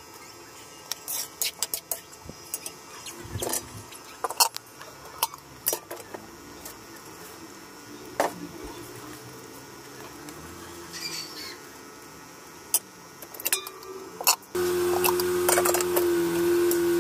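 A metal ladle clinks and scrapes against a metal wok in irregular knocks while lomi noodles are stirred and cabbage is added. About fourteen seconds in, a louder steady held tone cuts in suddenly and continues.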